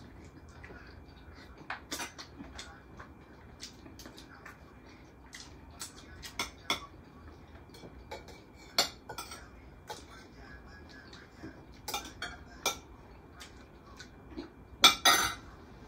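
Cutlery and dishes clinking during a meal: scattered sharp clicks of a fork and spoon against plates, a few at a time. The loudest cluster of clatter comes near the end.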